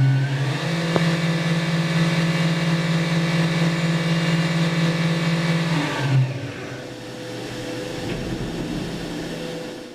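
Fadal VMC 4020HT CNC vertical mill running with a steady machine whine of several held tones. The pitch steps up about half a second in, there is a sharp click about a second in, and about six seconds in the sound drops to a quieter, lower hum.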